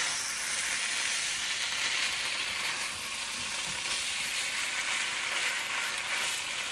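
Chicken pieces frying in curry paste and a little coconut milk, sizzling steadily as they are stirred in the hot pan.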